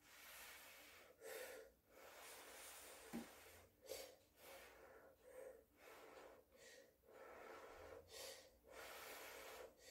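Instant cup ramen noodles being slurped from chopsticks: a string of faint, short, airy slurps and in-breaths, eight or nine in all.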